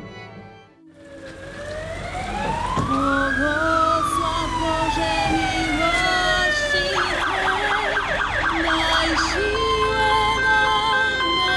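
Emergency-vehicle siren sounding. It winds up and down in one slow wail, switches to a fast yelp about seven seconds in, then changes to steadier alternating tones near the end.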